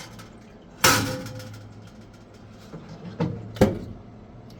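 Metal air-fry pan and trivet clanking against the oven as they are set inside: one loud clank about a second in, then two more knocks a little after three seconds.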